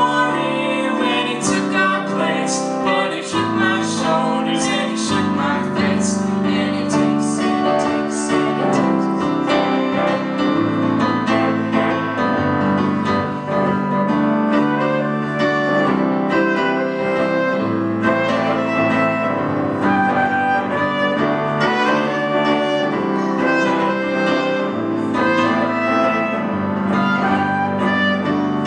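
Music: an acoustic piece with piano and strings and sharply plucked notes, steady in loudness.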